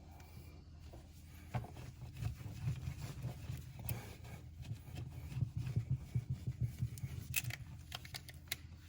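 Stick-on backsplash tile sheets being handled and pressed onto the wall: irregular scraping, rubbing and clicking that starts about a second and a half in and goes on until near the end.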